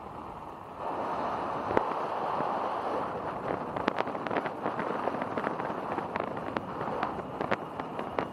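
Bicycle riding noise: a steady rush of wind and tyre noise that comes up suddenly about a second in, with irregular crackles and ticks from about three seconds on.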